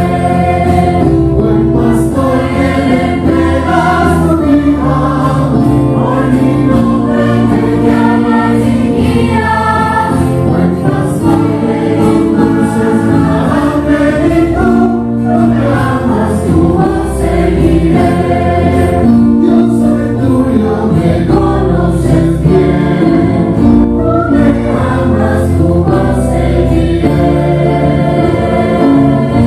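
Choral music: a choir singing with a steady instrumental backing.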